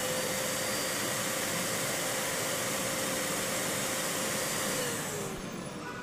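Upright vacuum cleaner running steadily with a whine, then winding down about five seconds in.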